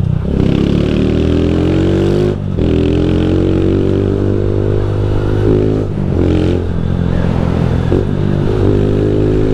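Honda CG 160 Fan motorcycle's single-cylinder engine accelerating through the gears: the pitch climbs, drops at a gear change about two seconds in, climbs again, and drops at another shift about halfway through. The rider puts the engine's strange noise down to the cam chain tensioner.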